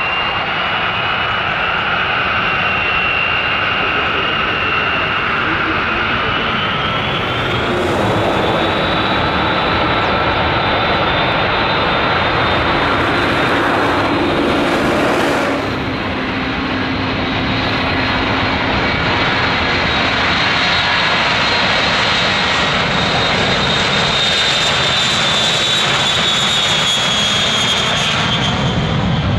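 Four Pratt & Whitney TF33 (JT3D) turbofans of a Boeing KC-135E Stratotanker running up to takeoff thrust for the takeoff roll. A high whine rises in pitch about seven seconds in, then holds over a steady, loud jet rumble.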